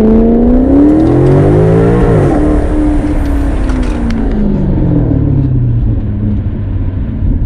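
Maserati GranTurismo's Ferrari-built V8 revving hard under acceleration: its pitch climbs for about two seconds, drops sharply, then falls away as the revs come down. No clear whistle stands out from the turbo whistles fitted in the exhaust tips.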